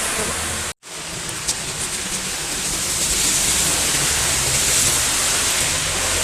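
Heavy rain pouring down in a steady dense hiss. The sound cuts out for an instant just under a second in.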